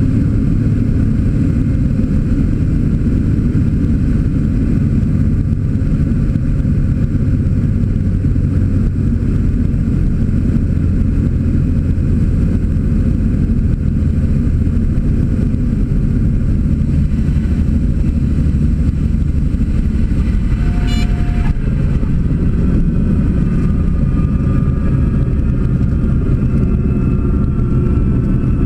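Cessna TU206G's turbocharged six-cylinder engine and propeller running at low power through the landing approach and rollout, a steady deep drone. A short high tone with a faint click about 21 seconds in.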